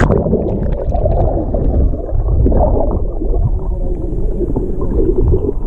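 Muffled underwater rumble and gurgling of churning surf and bubbles, heard through a submerged action camera's waterproof housing, with the high end cut off.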